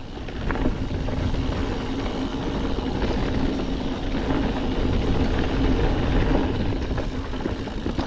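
Wind noise on an action camera's microphone, mixed with mountain-bike tyres rolling fast over a dirt singletrack descent. It is a steady, loud rumble.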